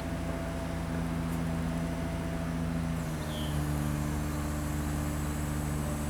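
Engine of a bucket truck running steadily, its note shifting slightly about three seconds in as the engine speed changes while the boom is worked.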